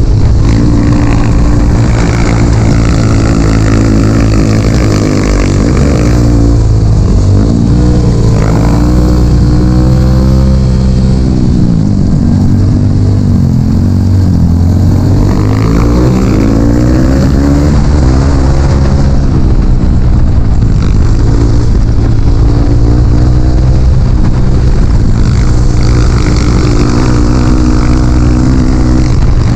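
Dirt bike engine running loud under way, its pitch falling and rising again several times as the throttle is worked.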